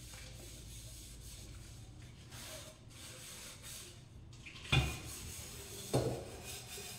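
A small pot being scrubbed by hand in a kitchen sink: a repeated scratchy rubbing, with two sharp knocks of the pot near the end.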